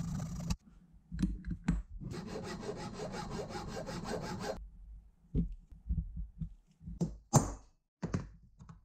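Hacksaw cutting through an aluminium block clamped in a bench vise, in two bouts of quick, even strokes, the second starting about two seconds in and lasting about two and a half seconds. After it come several separate knocks and clunks of metal on metal.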